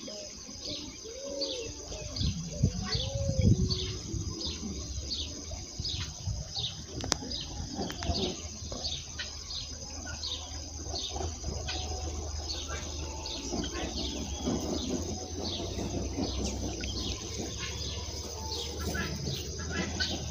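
A bird calling over and over, a short falling chirp about twice a second, over a steady high-pitched insect drone. A few lower, curving calls come in the first few seconds.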